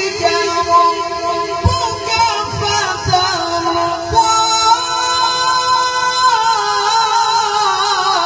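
A male qari chanting the Quran in the melodic recitation style, holding long notes with wavering ornaments. Partway through, the line rises to a higher held pitch.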